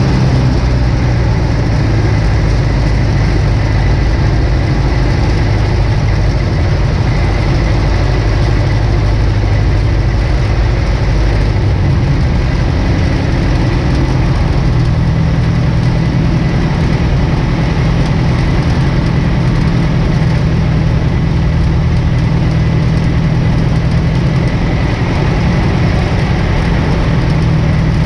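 1947 Aeronca Champ's piston engine and propeller running steadily in level flight, heard from inside the cockpit as a loud, even drone.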